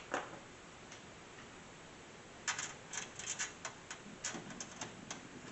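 A sharp click at the start, then from about halfway a quick, irregular run of light clicks and taps: small hardware and tools being handled while working on a desktop PC case.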